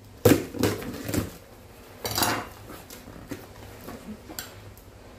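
Cardboard delivery box being opened and handled by hand. A sharp knock comes just after the start, then a few more knocks, and a longer scraping rustle about two seconds in, with small clicks after.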